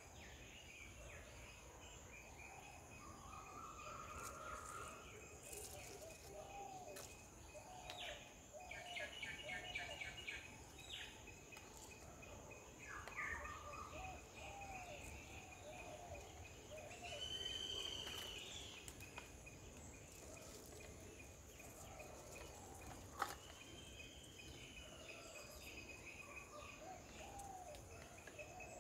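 Faint outdoor ambience of several birds calling, short notes and a quick trill scattered throughout, over a steady high insect drone. A single sharp click sounds about two-thirds of the way through.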